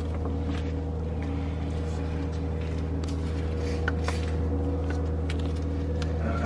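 Steady low hum with several fixed pitches, overlaid by a few faint clicks and taps from the tensioner bar and the drive belt being worked onto the pulleys.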